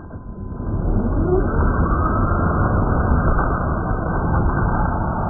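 Modified HSP Brontosaurus RC car accelerating hard across gravel, heard slowed down: a deep rumble and the hiss of spraying gravel. About a second in, a motor whine rises steadily in pitch.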